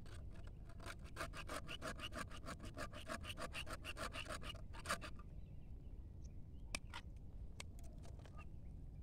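A metal blade scraping rapidly back and forth on woody stem and roots, a fast even rasp of about six strokes a second that stops about five seconds in. A few scattered light clicks follow.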